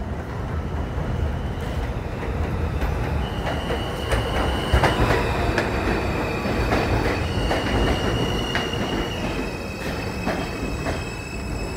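New York City subway M train pulling into an elevated station and slowing to a stop: wheels rumbling and clicking over the rail joints, with high, steady squeals setting in about three seconds in and shifting pitch as it slows.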